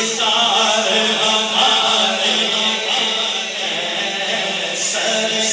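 Men's voices chanting together in a steady, held drone: the backing chorus of an Urdu naat recitation.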